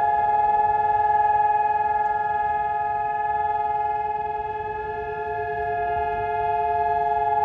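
Israeli memorial air-raid sirens sounding one unbroken, steady tone with several pitches held at once and no rise or fall, dipping slightly in loudness around the middle. This is the nationwide Yom HaZikaron siren, the signal for everyone to stop and stand in remembrance.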